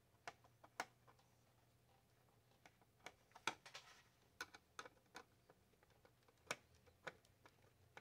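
Irregular small clicks and taps of a screwdriver against the Holmes space heater's hard plastic housing while its two halves are worked together and the screw holes lined up, with the sharpest knocks about three and a half and six and a half seconds in.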